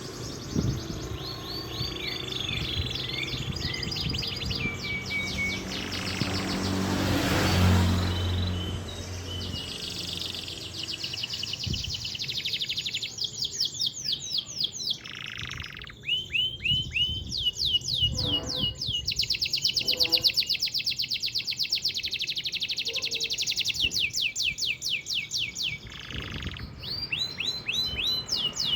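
Domestic canary singing a long, unbroken song of rapid trills and rolls, each phrase a fast run of identical high notes before switching to the next, its own natural song with no mimicked fill-ins. A broad rushing noise swells and fades behind it about a quarter of the way in.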